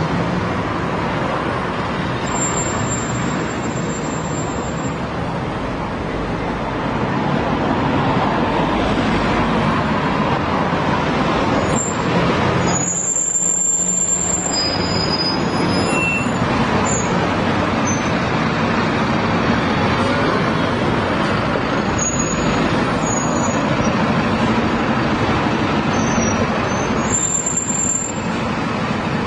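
Busy road traffic: a steady wash of engines and tyres from passing cars, buses and trucks, with a brief lull about halfway through. Short, thin high-pitched squeals come and go several times over it.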